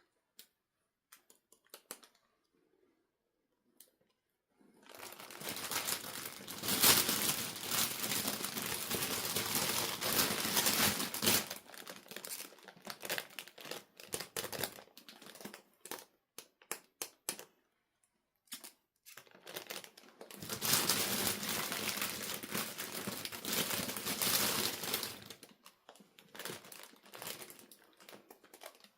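Packaging crinkling and rustling as it is handled, likely during unboxing, in two long stretches about five seconds in and again about twenty seconds in, with scattered light clicks and taps between.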